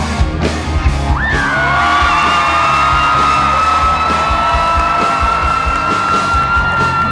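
Rock band playing live through a PA, with electric guitars, and one long high note held from about a second in until near the end.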